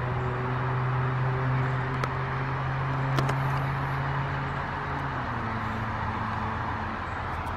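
Amtrak GE Genesis diesel locomotive approaching, its engine a steady low drone that eases off about five seconds in, with a couple of faint clicks over it.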